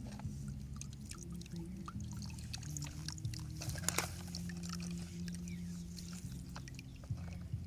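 Small electric motors of radio-controlled toy construction vehicles whirring and changing pitch, with gritty scraping and trickling of soil and scattered clicks.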